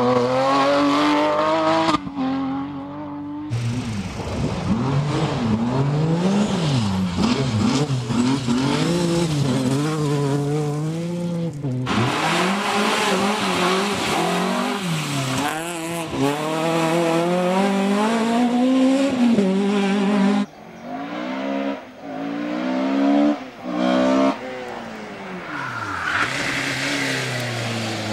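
Several rally cars at full throttle, one after another in short clips joined by abrupt cuts: engines revving hard, rising through each gear and dropping sharply at each shift and lift-off. A Porsche 911 GT3 rally car is among them.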